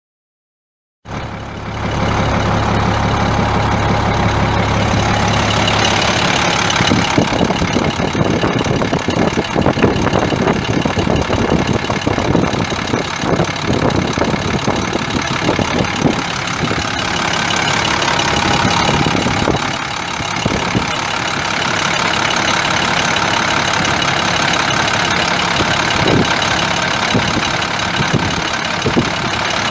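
International DT466 7.6 L inline-six turbo diesel running at idle, cutting in abruptly about a second in and running steadily, with irregular knocks over it.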